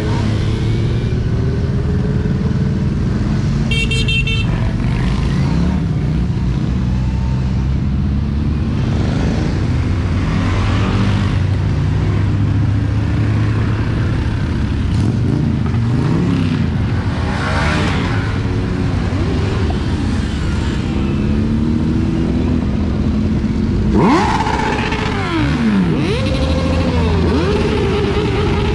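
Motorcycles riding past in a parade, many engines running together with repeated revving and engines rising and falling in pitch as they pass; a short high horn toot about four seconds in, and a louder machine passing close with falling pitch near the end.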